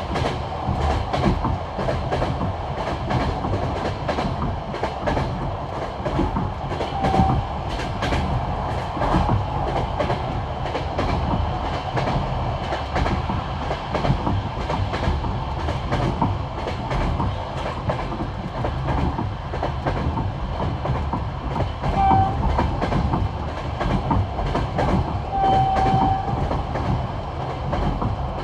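Passenger train carriage wheels beating out the classic clickety-clack over the rail joints of old jointed track at speed, over a continuous rolling rumble. Three brief high tones sound about 7, 22 and 26 seconds in.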